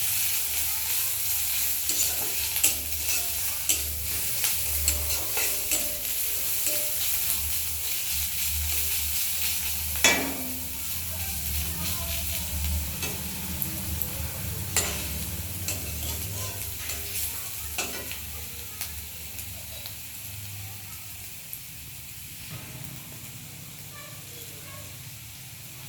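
Onion and garlic paste with slit green chillies sizzling in hot oil in a pan while a spatula stirs and scrapes it, the masala being fried down (kosha). Sharp knocks of the spatula against the pan about ten seconds in and twice more later, and the sizzle grows softer in the last few seconds.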